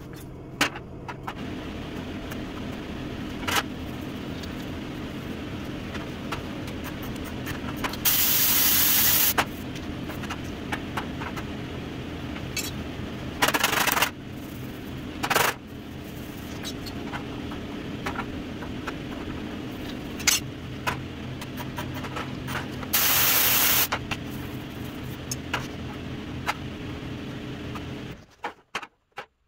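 Heat-shrinking a high spot on a sheet-steel tailgate: brief, sharp MIG welder zaps, with loud hisses of compressed air quenching the hot spots, four times. The longest hiss lasts over a second. A steady machine hum runs underneath and stops near the end.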